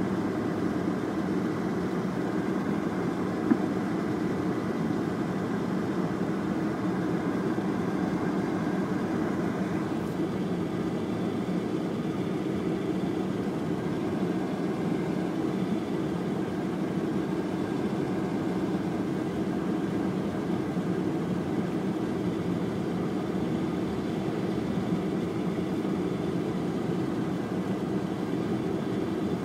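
Steady car engine and tyre noise heard from inside the cabin while driving slowly on snowy streets, with one short click about three and a half seconds in.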